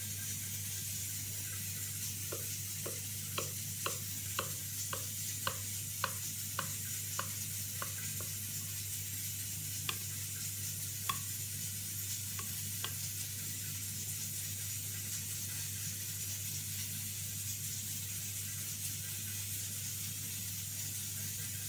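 A kitchen knife cuts through a chocolate-topped sponge cake on a glass serving plate, making a run of light clicks about twice a second from about two seconds in until about eight seconds, then a few single clicks. A steady low hum and hiss lie underneath.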